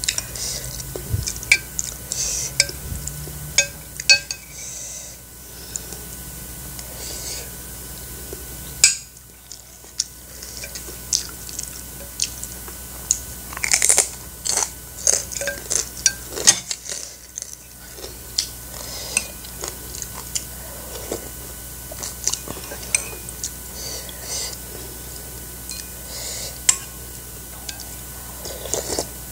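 Close-up eating sounds: a metal spoon clinking against a ceramic soup bowl and plate, with chewing throughout. About halfway through, a fried cassava chip is bitten and crunched.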